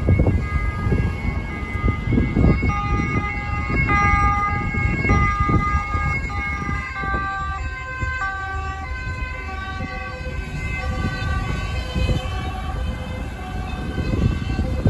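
Two-tone siren of a Dutch emergency vehicle sounding, alternating between two pitches, over the noise of passing cars and wind. The siren's pitch drops slightly about halfway through.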